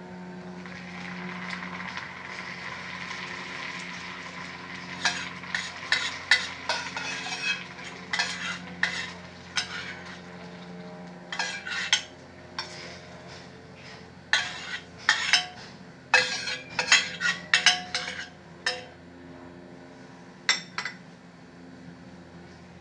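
Hot panela-and-honey caramel being worked with a spoon in a pan. A steady hiss for the first few seconds, then a run of sharp scrapes and clinks of the spoon against the pan, easing off near the end.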